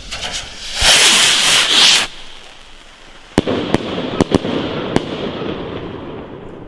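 A Funke Argento titanium firework rocket launching with a loud rushing whoosh about a second in. About two and a half seconds later it bursts with a sharp bang, followed by several scattered sharp pops and a fading crackle as its strobing stars spread.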